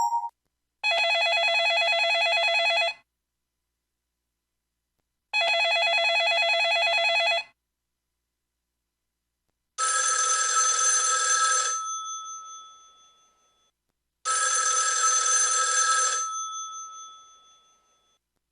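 Telephone-ring ringtones on a Sky IM-U150L mobile phone, played through its small speaker. First comes an electronic ring that sounds twice, about two seconds each time and stopping abruptly. Then a bell-style ring sounds twice, each one dying away over about two seconds.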